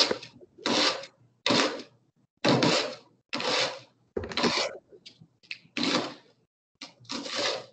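Knife cutting through red onion onto a cutting board in a half-inch dice: a steady run of short slicing strokes, about one a second.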